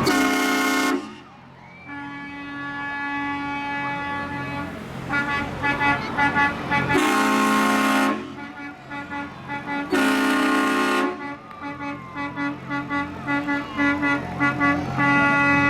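Train horns on a tow truck blowing a chord of several notes: three long, loud blasts (at the start, about seven seconds in and about ten seconds in), with quieter held notes and runs of short, quick toots between.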